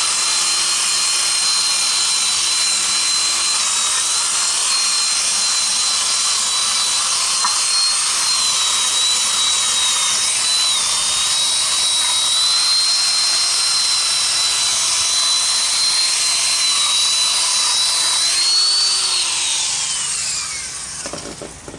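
Corded power tool spinning a wire wheel against a rusty steel truck wheel: a steady high motor whine with the hiss of the wire brush scrubbing the metal, scuffing it for paint. Near the end the tool comes off the metal and winds down, its whine sliding lower as it stops.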